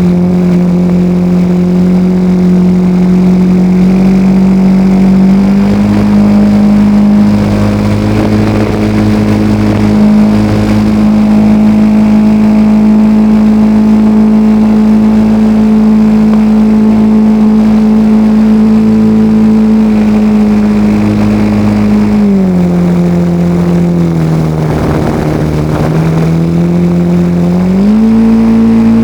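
Radio-controlled L-19 Bird Dog model plane's motor and propeller running steadily in flight, heard from a camera on board. The pitch rises a little about five seconds in, drops for several seconds as the throttle eases back, then climbs again near the end.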